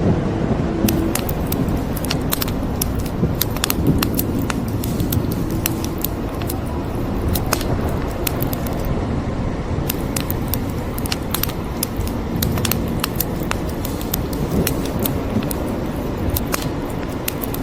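Wood fire crackling, with frequent sharp pops and snaps, over a steady hiss of rain.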